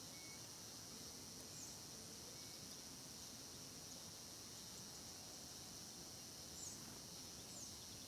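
Faint countryside ambience: a steady high-pitched insect drone, with a few brief bird chirps about a second and a half in and twice near the end.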